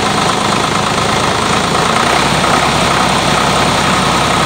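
Tractor diesel engine running at idle, with its radiator cooling fan drawing air in through the radiator grille. A steady, loud engine note; the low hum grows a little stronger about two seconds in.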